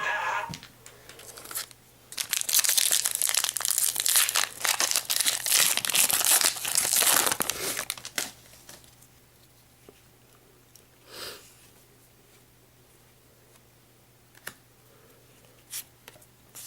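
Foil booster pack wrapper of a Pokémon trading card pack being torn open and crinkled for about six seconds, then a few faint rustles and ticks from handling the cards.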